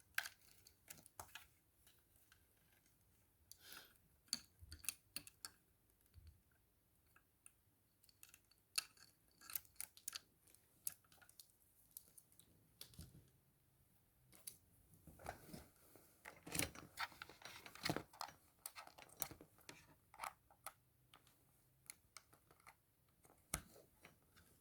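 Faint, scattered clicks, taps and rubbing of a small plastic gadget and its cable being handled and plugged in, busiest about two thirds of the way through.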